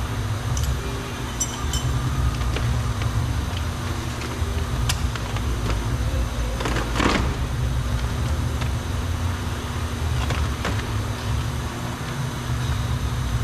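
Steady low rumble with scattered light clicks and knocks from plastic door pieces being worked loose by hand. About seven seconds in there is a short, louder scrape.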